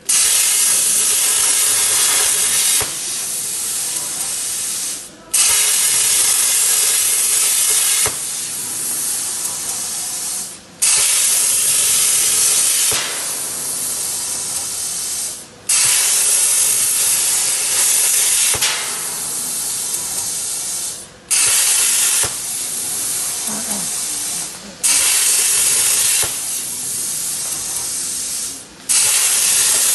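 A 105-amp Hypertherm plasma cutter on a CNC table cutting metal plate: the loud, steady hiss of the plasma arc. It cuts out briefly six times, every four to five seconds, as the arc stops and restarts for the next cut.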